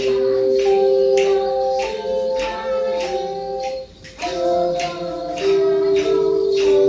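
Tone chimes played together: struck, ringing notes carry a melody over held chord tones, with new notes about every half second. The playing breaks off briefly about four seconds in, then goes on.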